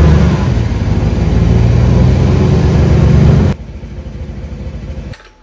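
2015 Chevy Silverado's engine running loud and steady through its straight-piped exhaust with the resonator removed. About three and a half seconds in it drops to a much quieter running sound, then cuts off shortly before the end.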